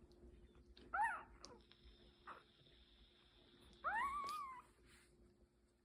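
Newborn puppy crying twice: a short squeal about a second in, then a longer cry that rises and holds, near four seconds.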